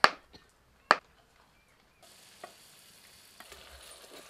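Two sharp knife chops through paneer onto a wooden cutting board, the loudest sounds, then from about two seconds in a steady sizzle of chopped onion frying in oil in a pot, stirred with a wooden spatula.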